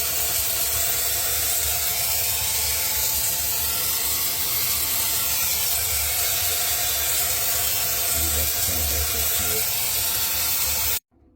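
A steady, loud hiss with a low hum underneath, from a handheld tool being used to melt the ice build-up that is blocking the airflow in a Samsung refrigerator that is not cooling. It cuts off suddenly near the end.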